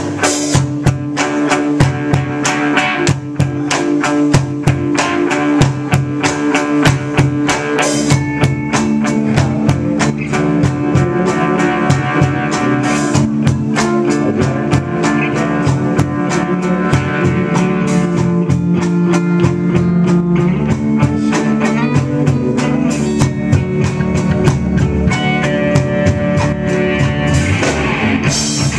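Live rock band playing: two electric guitars over a drum kit keeping a steady beat.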